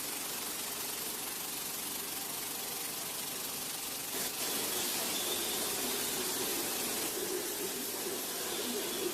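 Steady machinery noise with a hiss. A click comes about four seconds in, and the noise then runs louder.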